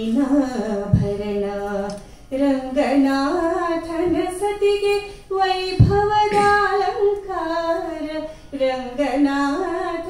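A woman singing a Kannada mukthaka (short verse) solo into a microphone with no accompaniment, in a slow melody of long held notes that step up and down in pitch. There are two brief low thumps, about a second in and near six seconds.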